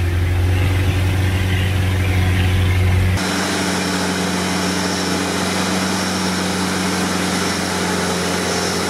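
Modified UAZ off-roader's engine running steadily at high revs as it churns through deep mud. For the first three seconds it is a heavy low drone heard close to the bonnet; then it is suddenly a steadier, higher engine note heard from outside the vehicle.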